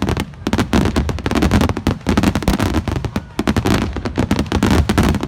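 Fireworks going off in a dense, rapid barrage of sharp cracks and pops over a low rumble, with brief lulls between volleys.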